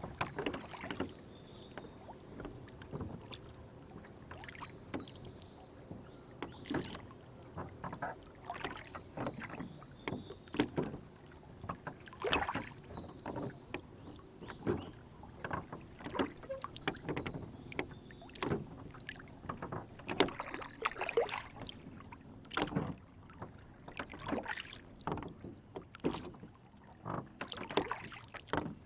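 Water splashing and lapping against a small rowboat on a lake, in irregular short strokes and knocks.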